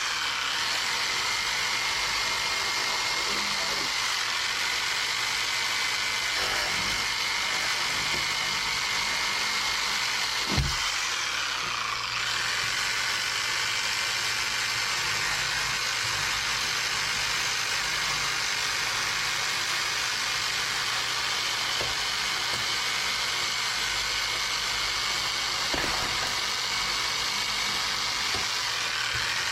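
A steady mechanical running noise, engine-like, at an even level, with a falling whine a little past ten seconds in and a few faint knocks.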